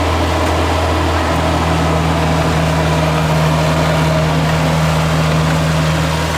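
Heavy farm-machine diesel engine running steadily with a deep, even hum.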